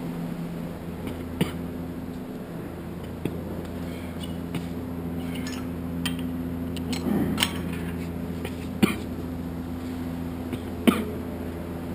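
Steady low hum with a handful of short, sharp metallic clicks and knocks, the loudest near the end, as the selector pin of a weight-stack machine is handled.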